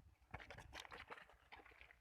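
Near silence with faint, scattered crackles and soft clicks.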